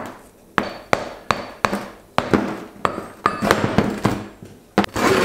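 A dozen or more sharp knocks and taps at an irregular pace, about two to three a second, some with a brief metallic ring: a hot, freshly sand-cast aluminium piece being knocked to clear the mould sand from it.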